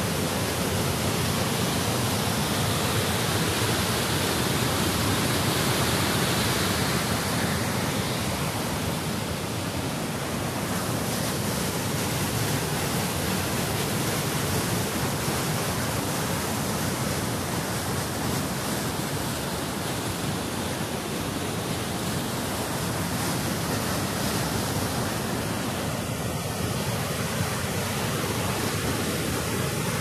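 A waterfall and the whitewater cascades below it rushing steadily over boulders.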